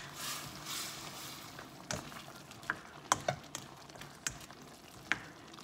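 Spatula stirring simmering bottle gourd and shrimp in a metal wok, its edge tapping and scraping against the pan in irregular sharp knocks, over a soft sizzling bubble.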